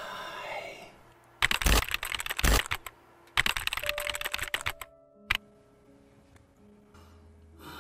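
Two bursts of rapid crackling clicks, then a single sharp click and a few held eerie tones.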